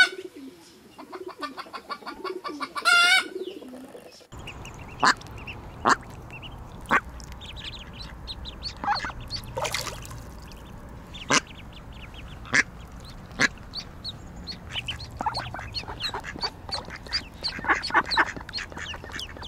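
Chickens clucking low, with a loud wavering call about three seconds in. Then, after a cut, mallard ducks quacking in short single calls about a second apart over steady background noise, with a quicker run of quacks near the end.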